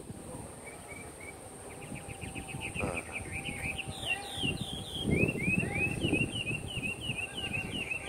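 Hwamei song: quick runs of short repeated high notes, then from about three and a half seconds in a steady string of falling whistled notes.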